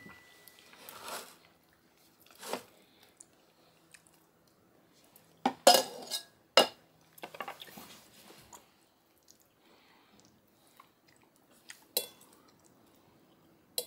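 Scattered clinks of metal utensils against a saucepan and a ceramic plate as more chili is served onto rice. The loudest is a cluster of sharp clinks about halfway through, and a fork clinks on the plate near the end.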